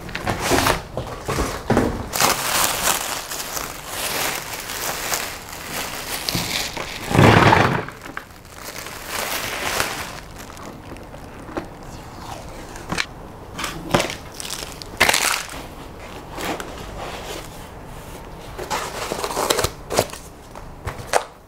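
Clear plastic wrapping crinkling and rustling as it is pulled off a boxed resin 3D printer, with one heavy thump about seven seconds in. After that come sparser rustles and knocks of foam packing being handled.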